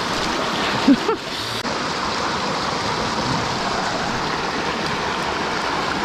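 Small rocky mountain stream running over a shallow cascade, a steady even rush of water. A short voice sound is heard about a second in.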